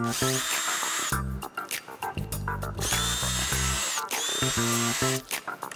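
Cordless drill-driver turning screws in short runs, about three times, its motor whine rising as it spins up, holding, then falling as the trigger is let go, with a few clicks near the end. Background music plays throughout.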